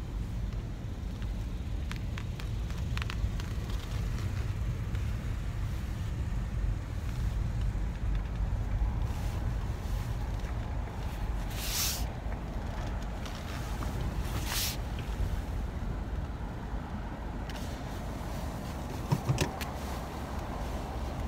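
Low, steady rumble of a car driving, heard from inside the cabin. Two short hissing noises come near the middle, and a quick cluster of knocks near the end.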